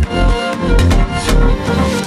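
Background electronic music with a heavy bass beat and drum hits.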